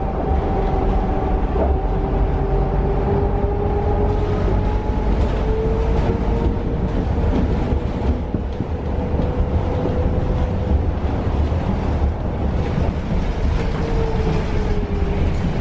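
Cabin sound of a Caio Mondego II articulated bus on a Scania K320 UA chassis under way: a steady low rumble of drivetrain and road, with a whine that rises slightly in pitch, holds, then falls near the end.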